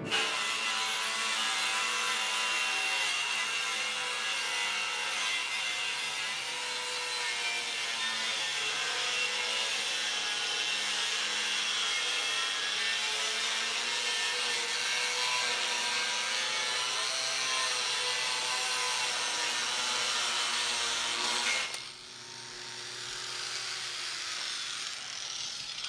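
Handheld angle grinder grinding metal: a steady, harsh grinding with a wavering pitch. About 22 seconds in the grinding stops abruptly and the grinder winds down with a falling whine.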